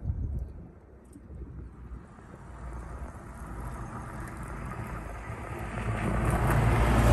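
A small kei truck approaching on the road, its engine and tyre noise growing steadily louder over several seconds toward the end.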